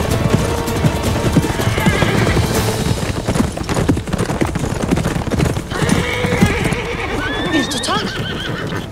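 Hoofbeats of several ridden horses pounding along a dirt trail, and near the end a horse whinnying with a rising, wavering call.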